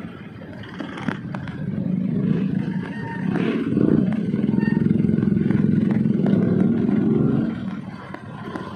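Small motorcycle engine running close by in slow traffic, growing louder about two seconds in and falling back near the end.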